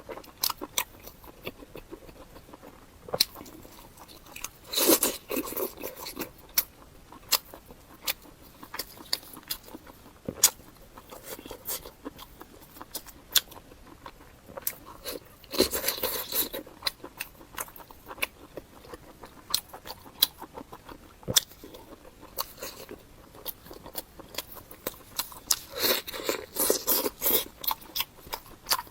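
Close-miked eating of pork offal: crisp crunching bites and chewing with many sharp clicks, and louder spells of crunching about five, sixteen and twenty-six seconds in.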